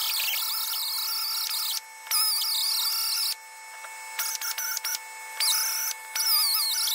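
Die grinder running with a high whine that wavers in pitch as the burr bites into the metal, stopping and starting several times. It is cleaning out a kingpin bearing bore that a disintegrated bearing has chewed up.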